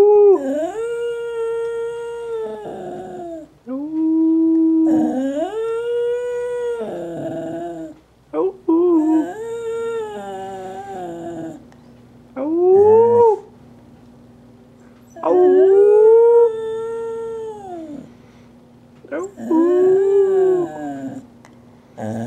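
Shetland sheepdog howling, about seven drawn-out howls that rise and fall in pitch with short breaks between them. The dog is still drugged, hours after hip surgery.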